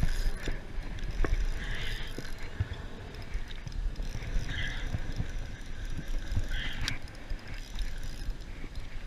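Fishing reel being cranked to bring in a hooked fish: the reel gives small mechanical clicks over a low rumble on the microphone, and a few short, higher scratchy sounds come at irregular moments.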